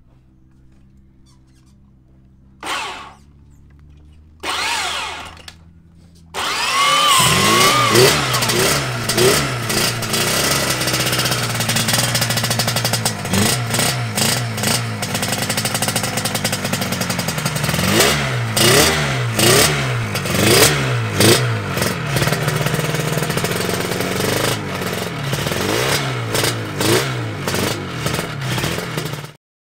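Yamaha TZ350 two-stroke parallel-twin racing engine giving two short bursts, then catching about six seconds in and running with repeated throttle blips, revving up and down. It stops abruptly near the end.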